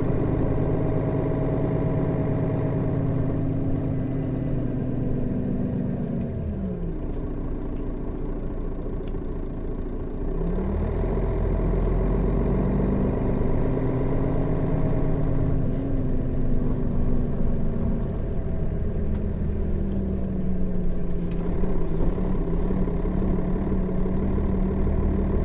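Setra S 315 NF city bus engine heard from inside the bus. The engine note falls to idle about six seconds in, climbs again about four seconds later and holds, then settles at a lower steady pitch near the end, as with a change up on its manual gearbox.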